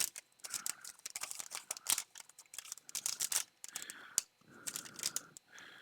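A card booster pack's foil wrapper being torn open and crinkled: irregular crackling and rustling.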